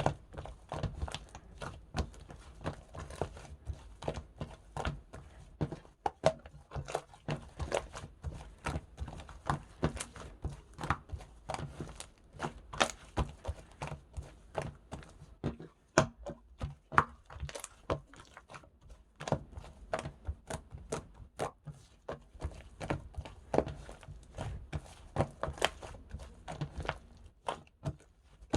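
Slime being squished and pressed by hand, making an irregular run of sticky clicks and pops, several a second, with soft thuds underneath.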